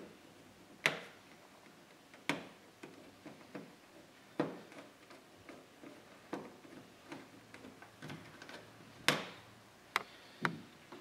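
Phillips screwdriver turning out the centre screws of plastic push-in fasteners along the top of a car grille: sharp plastic clicks every one to two seconds, with softer ticks between them.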